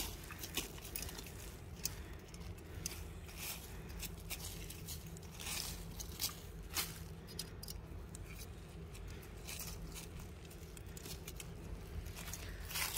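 Irregular crackling and rustling of dry pine needles and leaf litter as a knife blade scrapes and pushes through it.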